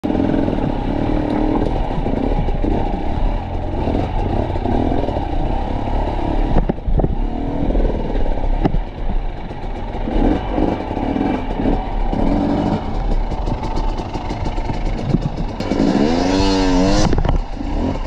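Enduro dirt bike engine pulling at low revs in uneven bursts as the bike is worked up over rocks, with knocks and clatter from the bike against the stones. Near the end the engine revs up and down sharply a few times.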